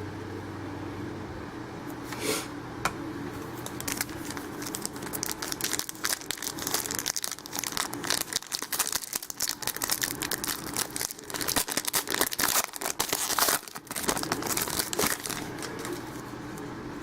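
Trading-card pack wrapper crinkling and tearing as a pack is opened and the cards are handled, in a run of irregular rustling that is densest through the middle, over a low steady hum.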